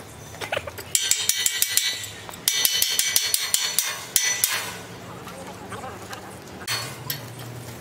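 Steel frame and post clanking under a hand wrench: two runs of rapid metal-on-metal strikes with a bright ringing, the first about a second in and the second from two and a half to four and a half seconds in. A steady low hum lies underneath.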